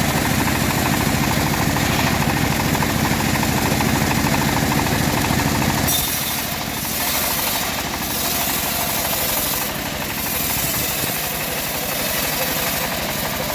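Homemade bandsaw mill's engine running steadily. About six seconds in the sound shifts: the low rumble weakens and a loud high hiss comes in, dipping briefly a few times.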